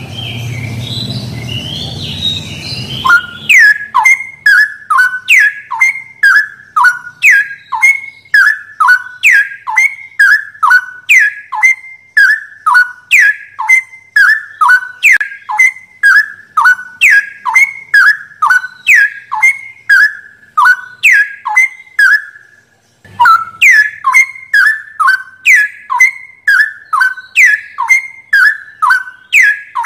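Straw-headed bulbul song: loud, clear whistled notes that sweep downward, repeated about twice a second, with a brief break a little over 20 seconds in. For the first few seconds there is a rushing noise instead.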